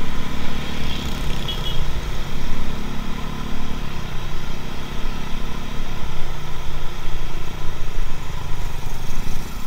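Motorcycle engine running under way, with wind and road noise, picked up by an action camera's built-in microphone. The engine note eases and picks up again around the middle.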